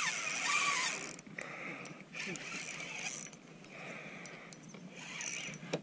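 Spinning reel being cranked in a few short spells, its gears whirring as line is wound in.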